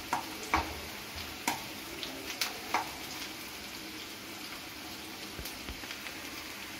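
Chopped onions sizzling in hot oil in a non-stick kadai as they sauté. A metal spoon stirs them, clicking and scraping against the pan about five times in the first three seconds, and then the sizzle goes on steadily.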